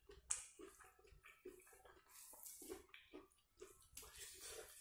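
Faint close eating sounds: wet chewing and mouth smacks, and fingers squishing and mixing food in gravy on a plate. A sharp click about a third of a second in is the loudest sound.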